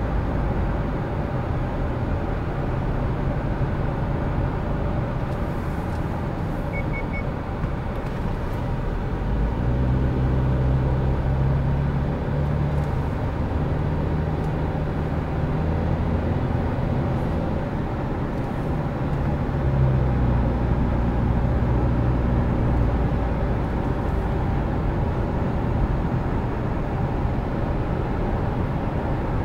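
Car interior noise while driving: steady tyre and road noise with a low engine hum that gets a little louder about a third of the way in.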